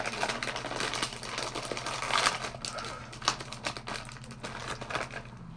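A plastic crisp packet crinkling and crackling as it is handled and pulled open by hand, busiest in the first three seconds and thinning out after.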